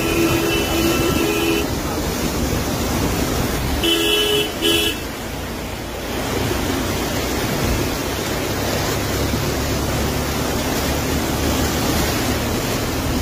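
A vehicle horn sounds, held for about the first second and a half, then gives two short toots about four seconds in. Underneath runs the steady rushing noise of floodwater and vehicles moving through it.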